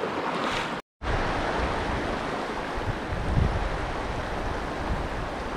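Steady rush of a flowing stream, broken by a brief dead gap about a second in; after it, low gusts of wind buffet the microphone.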